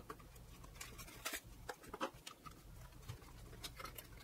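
Faint handling noise: light taps, scrapes and cardboard rustles as a plastic DIN-rail panel meter is handled and slid out of its cardboard box, with a few sharper clicks among them.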